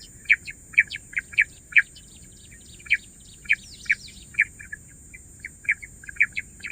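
Bush quail calling: a run of short, sharp whistled chirps, two to four a second, coming unevenly.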